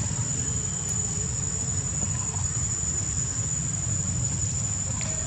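Steady high-pitched drone of insects over a continuous low rumble.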